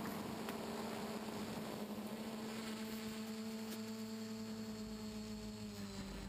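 Quadcopter's brushless motors and propellers humming steadily in flight, with a slight drop in pitch near the end as the throttle eases.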